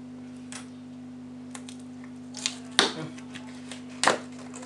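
A small parcel is unwrapped by hand: crackling plastic and bubble-wrap packaging, several sharp rustles and crinkles, the loudest two about a third and near the end. A steady electrical hum runs underneath.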